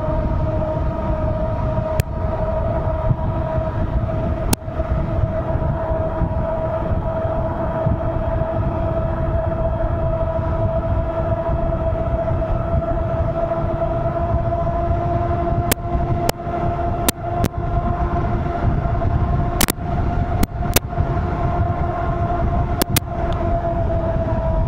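Ariel Rider Kepler e-bike's hub motor whining steadily under power at cruising speed, its pitch drifting slightly up and back down, over a low rumble of wind on the microphone. A few sharp clicks come in the second half.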